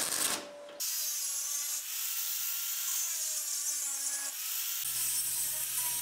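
Arc welding crackles briefly. Then, from just under a second in, a Metabo angle grinder cuts through a steel-wire queen excluder with a steady high hiss and a whine that wavers in pitch as it bites.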